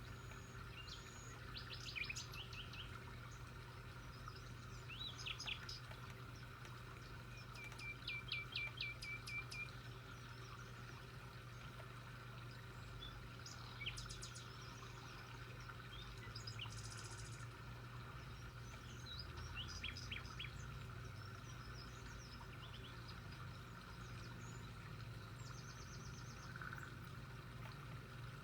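Birds chirping at intervals: short high calls and one quick run of about eight notes, over a steady low hum.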